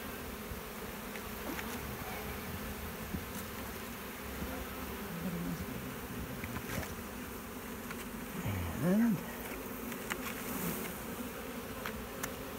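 Honeybee swarm buzzing steadily around the open hive box, with a louder swell that rises and falls in pitch about nine seconds in and a few faint clicks.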